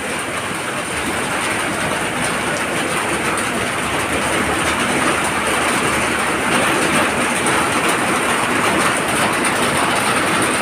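Floodwater rushing down a street in a fast, muddy torrent: a loud, steady, even rush of water.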